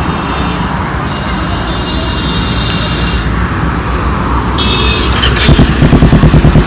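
Kawasaki Ninja 300 parallel-twin engine running through a newly fitted aftermarket exhaust, a steady low note at first. About five and a half seconds in it turns much louder, with a fast regular pulsing of about five beats a second.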